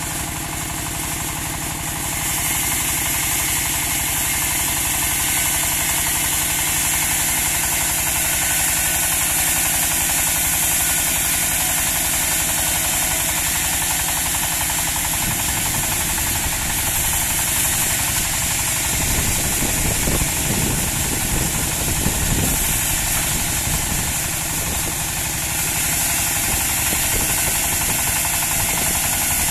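Engine of a portable bandsaw sawmill running steadily, with strong high hiss throughout. It gets a little louder about two seconds in, and a heavier, uneven low rumble comes in from about halfway to about three-quarters of the way through.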